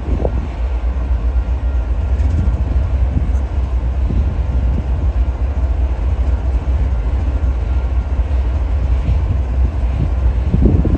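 Diesel-electric passenger locomotive of a Metrolink commuter train running with a steady low rumble.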